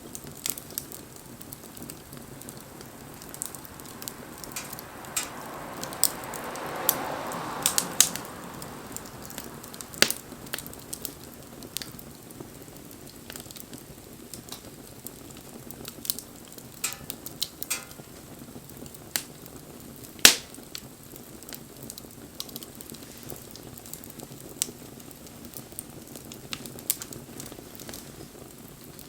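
Wood fire burning with irregular crackles and sharp pops over a low steady rush, the loudest pop about twenty seconds in. A hissing swell rises and falls about six to eight seconds in.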